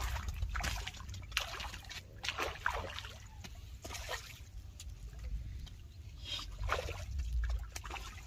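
Hooked tilapia splashing and thrashing at the surface of the water as it is played on the line: a run of irregular splashes.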